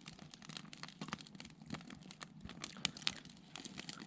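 Wood campfire crackling, with many small irregular pops and snaps.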